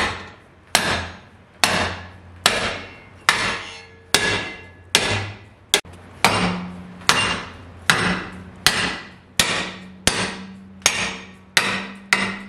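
Dead blow hammer striking a 1/8 inch cold-rolled steel plate clamped in a bench vise, bending it over a radius. The blows come steadily, a bit more than one a second, each with a short ringing decay.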